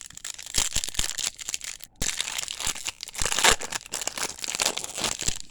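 A pack of 2021 Topps Series 1 baseball cards being torn open, its wrapper crinkling and crackling. There is a brief break about two seconds in.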